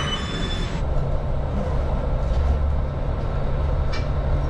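Passenger train running on the rails, a steady low rumble heard from inside the carriage; a high hiss over it dies away about a second in.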